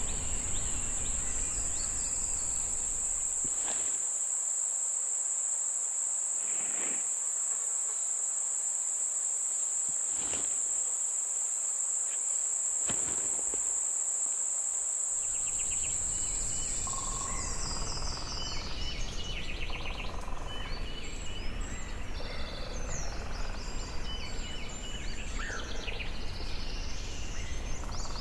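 Nature ambience: a steady, high insect trill for about the first two-thirds, then birds chirping and singing in the last third.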